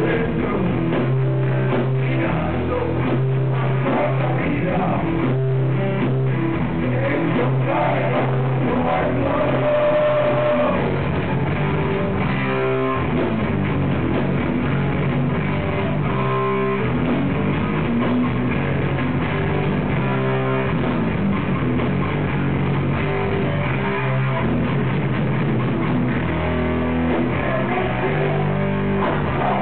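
Heavy metal band playing live and loud: bass guitar, electric guitar and drum kit, steady with no breaks.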